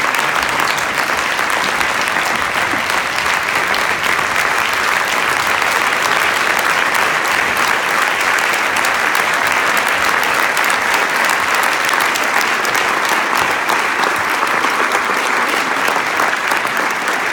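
A large audience applauding, a dense, steady round of clapping that holds at the same level.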